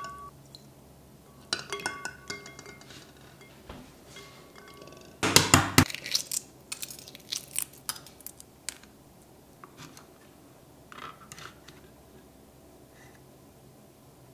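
Ice cubes clinking against a glass bowl of water with a short ringing tone. About five seconds in comes a loud crack as a hard-boiled egg's shell is broken, then a run of crackles as the shell is peeled off, fading to a few small clicks.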